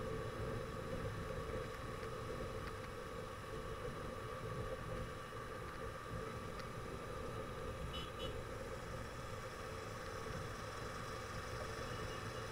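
Steady traffic and road noise heard from a moving vehicle: a constant drone of engines and tyres with a steady hum, and a brief high beep about eight seconds in.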